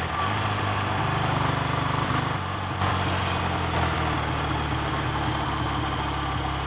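BSA A65 650 cc parallel-twin engine running at low revs with a slightly uneven beat, misfiring from a failing electronic ignition.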